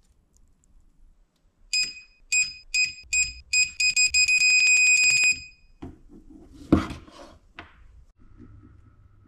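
Electronic beeper on a battery-powered mini spot welder board: four short beeps, then one long beep of about two seconds, followed by a single loud sharp snap.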